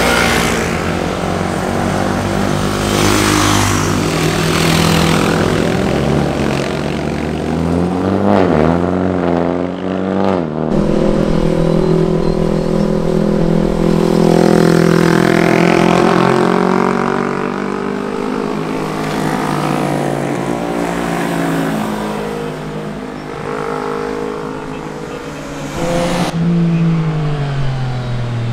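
Sport motorcycles riding past one after another through bends, their engines revving up and down with throttle and gear changes. The engine note switches abruptly from one bike to the next a couple of times, and near the end one bike's engine drops steadily in pitch.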